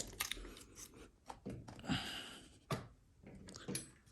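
Kids' bike parts being handled and pushed together: a few separate sharp clicks and knocks, with a brief scraping rustle about two seconds in, as a tool-free locking part is worked into place.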